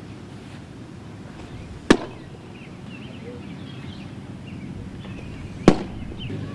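Baseball fastballs smacking into a catcher's leather mitt: two sharp pops about four seconds apart.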